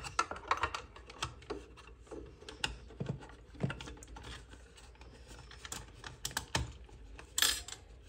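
Irregular small plastic clicks and taps as a refrigerator compressor's start relay and junction-box housing are handled and pushed back onto the compressor terminals, with wires rubbing. A brief louder scrape comes near the end.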